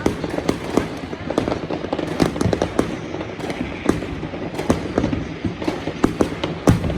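Neighbourhood fireworks and firecrackers going off in a dense, irregular barrage of sharp bangs and pops, several a second, over a continuous crackling haze.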